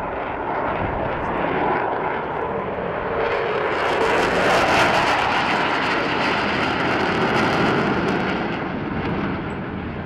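A fixed-wing display aircraft flying past, its engine noise swelling to a peak about halfway through and then fading.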